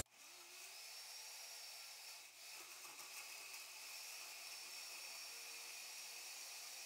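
Faint steady hiss, close to silence: room tone or recording noise with the soundtrack turned almost all the way down.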